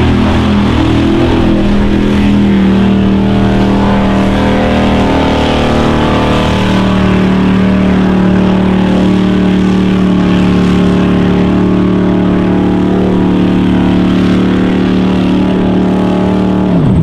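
Mud bog truck's engine held at high revs at full throttle, its pitch nearly steady, while the tyres churn through deep mud and throw it up.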